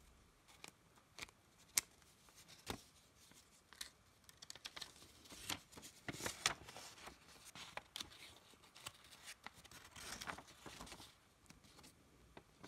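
Faint paper handling: a sheet of origami paper rustling and crinkling, with scattered small taps and clicks as it is folded, pressed and opened out, busiest in the middle stretch.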